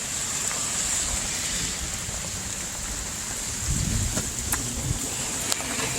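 Heavy rain pouring down: a steady hiss of rain with a few sharp drip ticks, and a brief low rumble about four seconds in.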